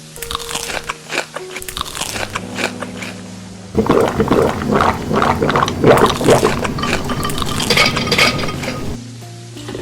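Close-up mukbang eating sounds: crunching, chewing and clinking right at the microphone, growing denser and louder about four seconds in, over soft background music with held notes.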